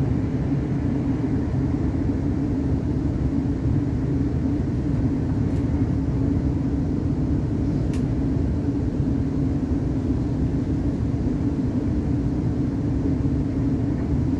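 Cabin running noise of a Class 360 Siemens Desiro electric multiple unit at speed: a steady rumble of wheels on rail with a constant low hum. A couple of faint clicks come through about halfway in.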